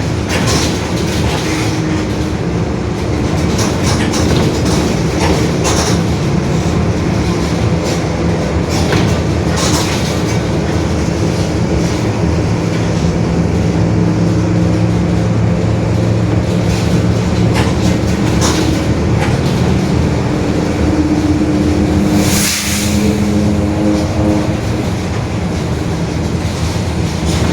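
Mercedes-Benz OF-1721 city bus heard from inside while driving: diesel engine and drivetrain running, with a steady whine that shifts in pitch over road rumble. The whine is the differential growl the recording is made for, the sign of a noisy, worn differential. A short hiss comes near the end.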